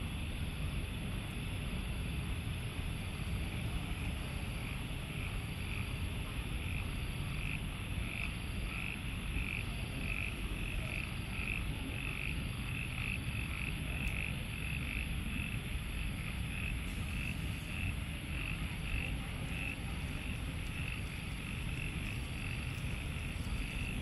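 Frogs calling after rain: a steady series of short croaks, about two a second, building up a few seconds in. Underneath is a constant high hiss and a low, steady rumble.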